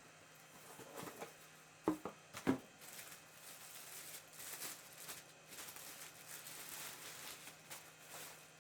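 Packaging being handled while a power tool is unboxed: two sharp knocks about two seconds in, then several seconds of irregular rustling of wrapping.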